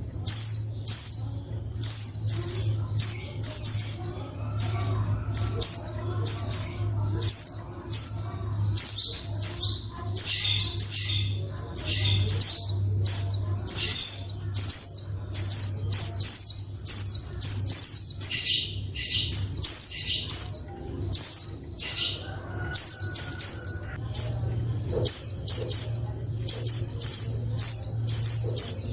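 Female white-eye (pleci) calling: quick clusters of three or four high, sharp notes, repeated about once a second, over a low steady hum.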